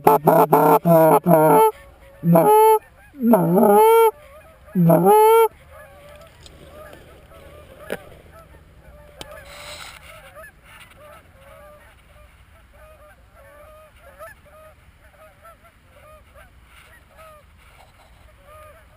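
Geese honking: a fast run of loud, close honks, then three longer drawn-out honks, giving way about five seconds in to faint, scattered honking from many geese.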